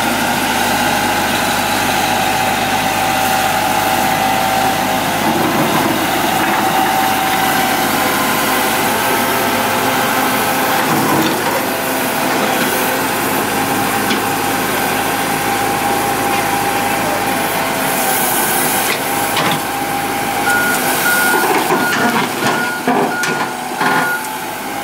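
Diesel engine of a Komatsu PC70 excavator running steadily under load, with a steady whine over it. Near the end a warning beeper sounds about twice a second, alongside several knocks.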